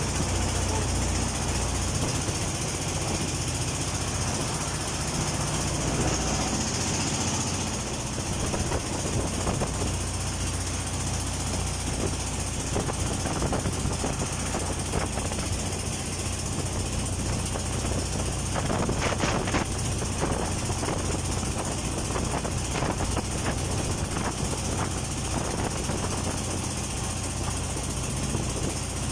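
Engine of a wooden river boat running steadily underway, a low knocking rumble, under a constant hiss of wind and water.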